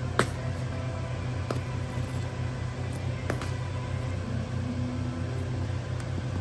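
A steady, low mechanical hum with a slight pulse, from running cafe equipment, under a handful of sharp clicks and taps of drink-making work.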